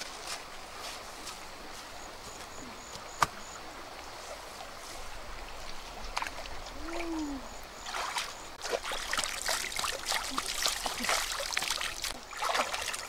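Water splashing and sloshing as a person wades barefoot through a shallow river and reaches into it, starting about eight seconds in and growing busier. Before that, a quiet river-bank background with a single sharp click about three seconds in.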